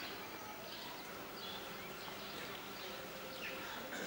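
Small birds chirping faintly: a string of short, falling chirps every second or so over a quiet background hum.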